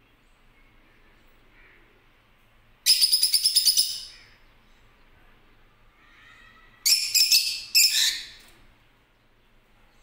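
Lutino peach-faced lovebirds giving two bursts of rapid, high-pitched chattering calls: the first about three seconds in, lasting about a second, the second from about seven to eight and a half seconds in, in two quick runs.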